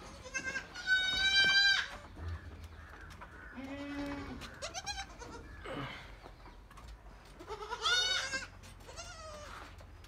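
Goats bleating over and over: two loud, wavering high-pitched bleats, one about a second in and one near eight seconds, with shorter and lower bleats between them.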